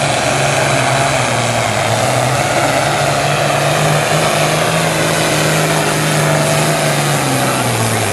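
Diesel engine of a farm-stock pulling tractor running hard under load as it drags the weight-transfer sled, its pitch climbing slightly at first, then sagging and dropping away near the end as the pull dies. The engine did not sound quite right on this pull.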